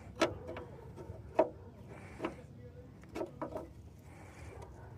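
A handful of sharp knocks and clicks from parts or tools being handled, the loudest about a second and a half in and a quick cluster of three a little after three seconds.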